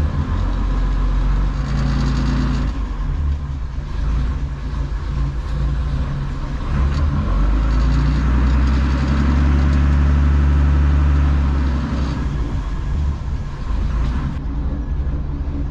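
Dutch barge's DAF diesel engine running in reverse, revved up twice, briefly about a second in and for longer from about seven to eleven seconds, to shake loose something wrapped around the propeller.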